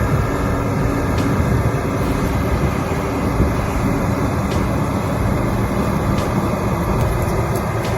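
Heavy bulldozer's diesel engine running steadily, with a few faint clanks.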